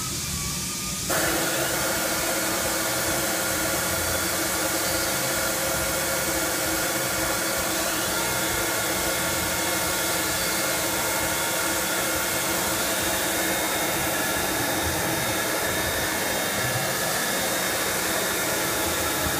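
Motionmaster 5-axis CNC router switching on abruptly about a second in, then running steadily: a loud airy hiss with several steady hums.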